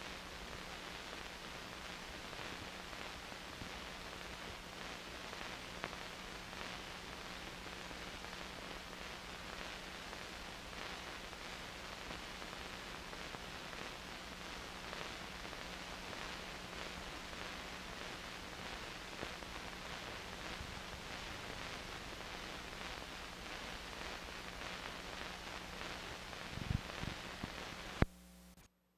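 Steady hiss and faint crackle with a low, steady hum: the background noise of an old film soundtrack transfer with nothing recorded on it. A few clicks come near the end, then it cuts off suddenly into silence.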